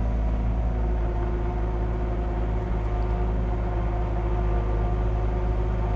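Caterpillar 259D3 compact track loader's diesel engine running steadily under load while it pushes dirt with its blade. A steady whine comes in about a second in over the engine drone.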